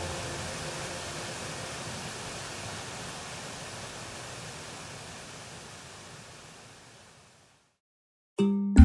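Steady rushing water noise that fades out gradually until it is gone; music starts near the end.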